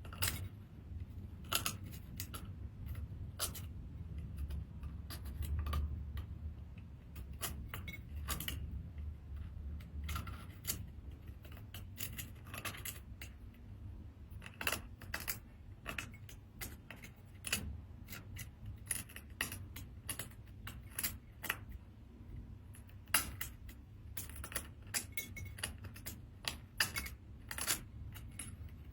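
Seashells being handled, clicking and clinking against one another in a run of irregular sharp clicks.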